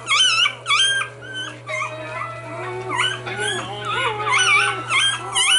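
Newborn puppies whimpering and squealing. First comes a quick run of short high chirping cries, then several longer wavering whines overlapping one another.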